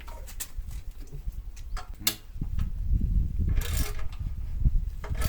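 Hand-tool clicks and knocks on metal as bolts on a motorcycle's stock exhaust are worked loose. From about halfway in, a low rumble of handling noise on the phone microphone sets in, with a short rasping burst a little later.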